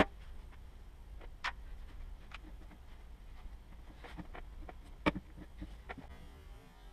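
Scattered light clicks and taps, about a dozen at uneven spacing, the sharpest right at the start and about five seconds in, over a steady low hum.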